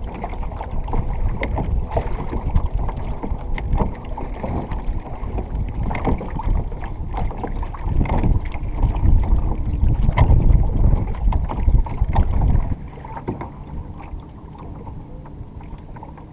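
A small dinghy being rowed with wooden oars into a headwind: rough wind noise on the microphone with irregular knocks and splashes from the oars. The noise drops about thirteen seconds in.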